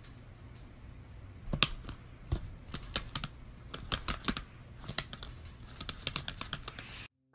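A run of light, irregular clicks and taps over a steady low hum, starting about a second and a half in and cutting off suddenly near the end.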